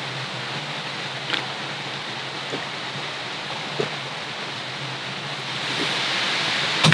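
Steady rushing of a mountain stream flowing near the campsite, growing a little louder toward the end, with a few faint ticks and a sharp click near the end.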